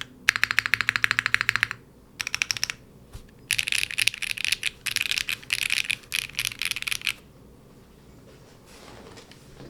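Fast typing on a Machina Cloudnine mechanical keyboard with HMX Martini V2 linear switches: rapid runs of keystrokes in bursts with short pauses. The typing stops about seven seconds in.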